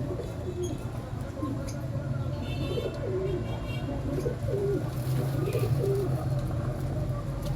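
Domestic pigeons cooing, several short rising-and-falling coos repeating and overlapping, with a few higher chirps and a steady low hum underneath.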